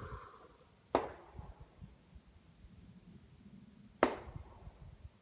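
Two sharp distant gunshots about three seconds apart, each with a short echoing tail.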